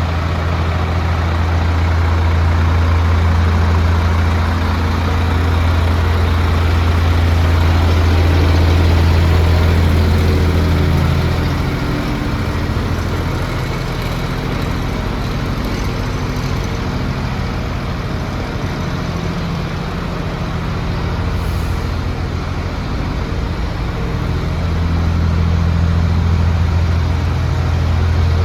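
A DAF CF75's Paccar six-cylinder diesel engine idling steadily with a deep, even hum. The hum grows fainter for about ten seconds midway, then comes back louder near the end.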